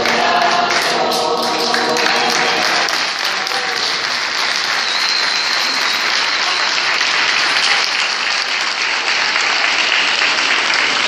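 Audience applauding. For about the first three seconds the adult choir's final held chord still sounds under the clapping, then it ends and only the applause goes on.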